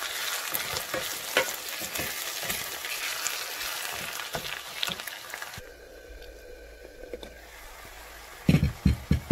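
Finely chopped red onions sizzling in oil in a stainless saucepan, stirred with a wooden spoon; the onions have cooked off their water and are now frying. About halfway through the sizzle drops away sharply, and near the end the wooden spoon knocks against the pan several times.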